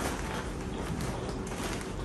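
A reusable plastic shopping bag rustling and crinkling as it is handled and groceries are taken out of it, with small irregular knocks of items being moved.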